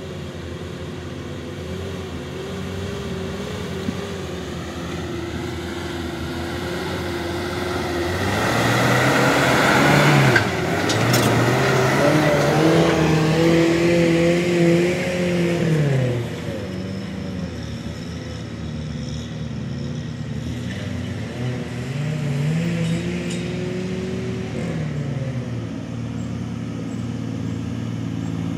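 Off-road 4x4 truck engines running and revving as they crawl up a steep dirt trail, the engine pitch climbing and falling with the throttle. The loudest stretch comes about a third of the way in, and there is another rise and fall of revs later on.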